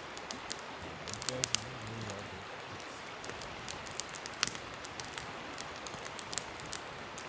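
Wood campfire crackling, with irregular sharp pops and snaps scattered throughout.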